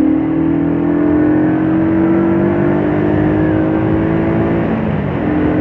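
Shineray Jet 50cc scooter's small engine running under way, its pitch climbing slowly. About five seconds in it eases off briefly, then picks up again.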